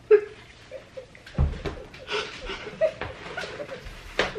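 A man and a woman laughing, stifled giggles and breathy chuckles in short irregular bursts, with a few sharp knocks or bumps among them.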